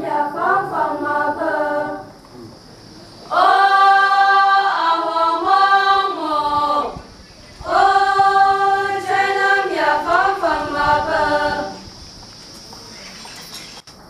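A group of girls singing together without accompaniment, in long held phrases with short pauses between. The singing stops about 12 seconds in.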